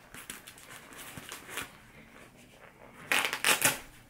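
Boxing gloves being handled and pulled onto the hands: soft rustling and small clicks, with a louder scraping rustle about three seconds in as a glove is worked on at the wrist.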